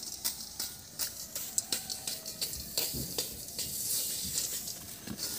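Hot sand and chickpeas being stirred and scraped around a wok with a bundle of thin sticks: a gritty, rasping hiss with many small sharp clicks, the sound of chickpeas dry-roasting in sand.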